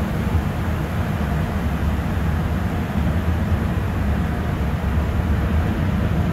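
Steady low rumble and water spray of a tunnel car wash's machinery, heard from inside the car's cabin.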